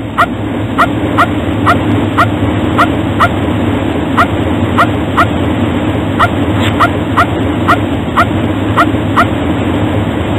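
Cartoon monster Jeep's engine running steadily, with a small dog yelping over it in short, evenly spaced yelps about twice a second as it is dragged on its leash.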